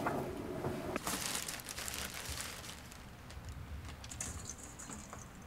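Plastic bag crinkling and rustling as a metal bowl scoops powdery cherry-wood ash for glaze out of it. The rustle starts about a second in and grows fainter after a couple of seconds.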